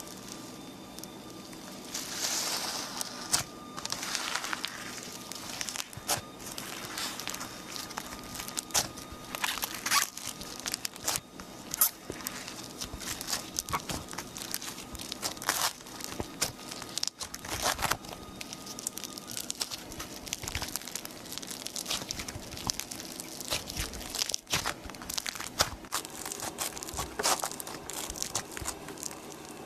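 Slime being squeezed and stretched by hand, giving a dense run of crackling, popping clicks and crinkling.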